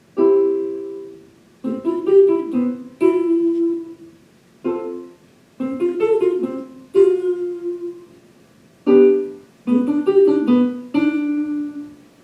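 Keyboard chords played three times over, each group a held chord, then its notes played quickly one after another, then the chord again.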